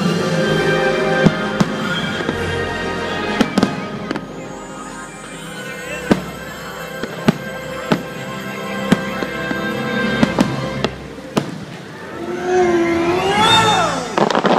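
Fireworks going off in a string of sharp bangs, about nine of them, one every second or so, over the fireworks show's music.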